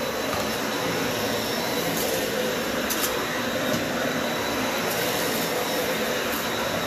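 Dyson upright ball vacuum cleaner running on carpet: a steady motor whine and rush of suction as it is pushed along, with a few faint ticks.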